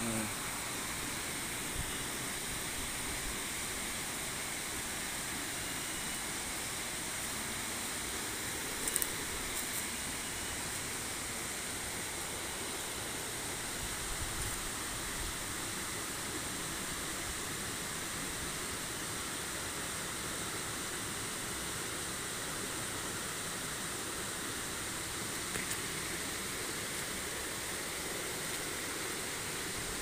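Steady rush of stream water tumbling over boulders below a waterfall: an even, unbroken hiss with no changes.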